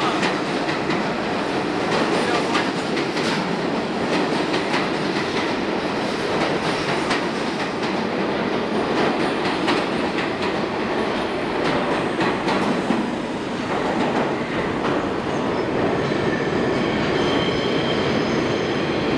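New York City R46 subway train running out of the station past the platform, wheels clicking over the rail joints. A faint, high wheel squeal comes in near the end as the last car goes into the tunnel.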